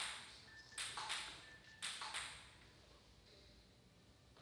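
Table tennis ball clicking off the bats and table in a short rally, about five sharp hits in the first two and a half seconds, some in quick pairs of bounce and stroke, then the ball stops.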